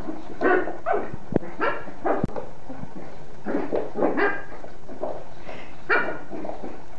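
Small dog barking in short, quick bursts while play-fighting with a cat, with a couple of sharp knocks in between.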